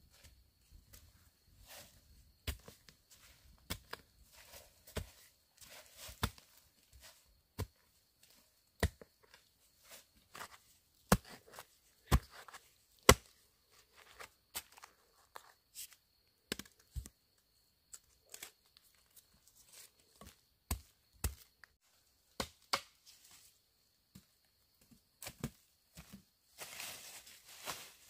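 Irregular sharp chops and snaps on plant material, one or two a second, the loudest a little before the middle, with a rustle near the end.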